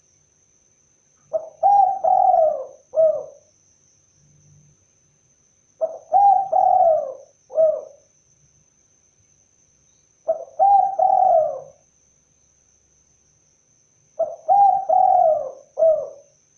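Spotted dove (tekukur) cooing: four repeated phrases about four seconds apart, each a short opening note, two falling coos and a brief final coo.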